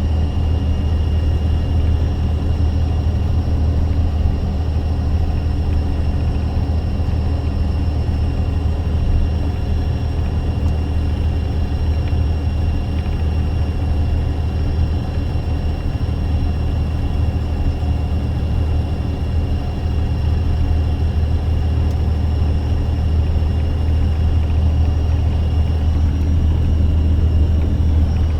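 Box truck engine and road noise, heard as a steady low drone inside the cab.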